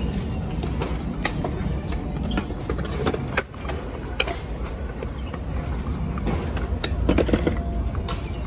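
Stunt scooter wheels rolling over a concrete bowl, a steady low rumble, with scattered sharp clicks and knocks of wheels and deck on the concrete.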